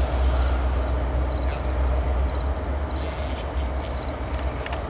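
Insects chirping in the grass, each chirp a quick trill of three or four pulses repeated every second or so, over a steady low rumble.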